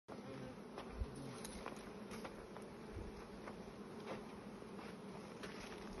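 A mass of honeybees buzzing in a steady drone around hives a bear has broken open, their frames torn out and scattered. A few light knocks sound over it, the loudest about a second in.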